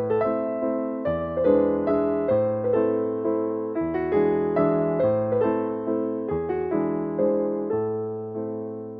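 Slow, gentle piano melody, single notes and chords struck about every half second and left to ring, growing gradually softer toward the end.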